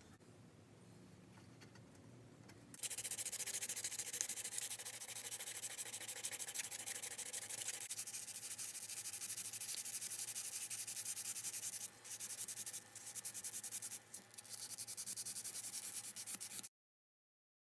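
Folded sandpaper rubbed by hand back and forth along a thin metal rod in quick strokes, starting about three seconds in, with two brief pauses near the end.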